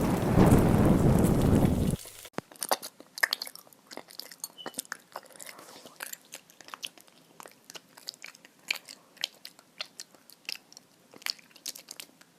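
A loud rushing noise cuts off abruptly about two seconds in. It is followed by a run of quieter, irregular sharp crunches, like chewing on something crisp.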